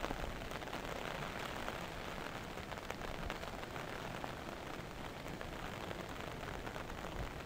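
Steady rain falling on wet ground and pavement, an even hiss with no breaks.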